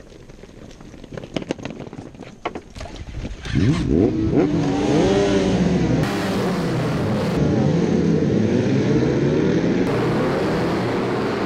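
A grid of superbike engines firing up and revving hard as the motorcycles pull away at the start of an endurance race, many engines at once, their pitches rising and falling over one another. Before them come about three and a half seconds of quieter scattered clicks and taps.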